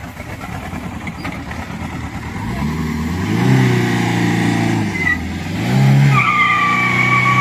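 Diesel engines of an SUV and a tractor straining against each other in a tug-of-war, revving up hard about three seconds in and again near six seconds. From about six seconds there is a steady high squeal of the SUV's tyres spinning on the tarmac.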